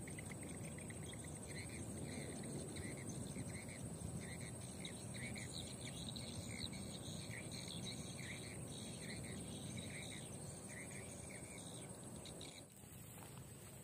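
Outdoor ambience: a low steady rush with a run of short, high, repeated chirps, about two a second, which stops and drops quieter near the end.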